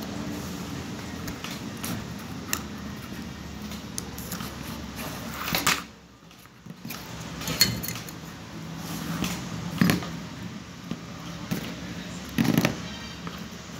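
Scattered clicks and taps of hands handling a power-window regulator's plastic cable drum and thin steel cable while the cable is wound on, over a steady background hum.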